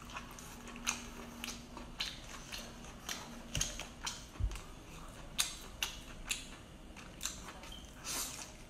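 Cooked lobster shell cracking and crackling as it is pulled apart by hand: a string of sharp, irregular clicks, about one to three a second, with biting and eating sounds near the end.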